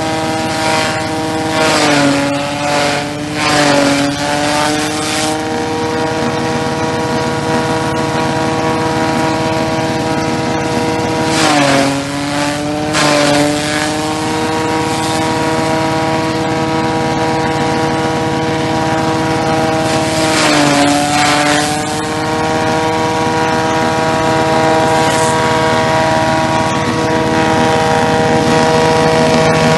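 Elephant grass chopper machine running steadily. Several times, as bundles of grass are fed in, the blades shred them with a loud burst of noise and the machine's pitch sags under the load, then climbs back.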